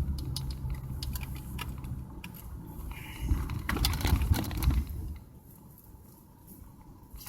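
Inside a car: a low engine and road hum with a scatter of small clicks and rattles, loudest about three to five seconds in. The hum then drops away to a low level.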